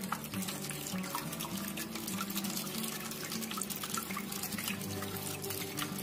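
Water trickling and splashing steadily through a small homemade waterfall fountain, with background music underneath.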